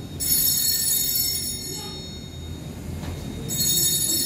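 Altar bells rung at the elevation of the host during the consecration: a cluster of small bells gives a high, shimmering ring in two bursts, one just at the start and another about three and a half seconds in.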